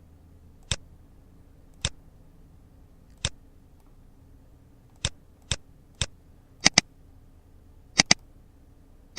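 Computer mouse button clicks: six single clicks about half a second to a second and a half apart, then quick double-clicks near the end.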